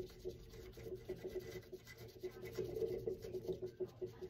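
Green felt-tip marker scrubbing back and forth over a slab of Model Magic modelling compound, colouring it in quick, faint strokes.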